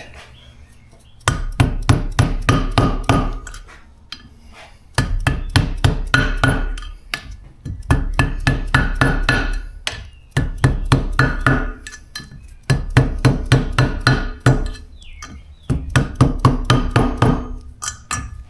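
Small dead blow hammer tapping on a 12mm socket, driving valve stem seals down onto the valve stems of an LS cylinder head. Six quick runs of about five light taps a second, each lasting about two seconds, one run per seal, with short pauses between. The tapping sounds different once a seal seats.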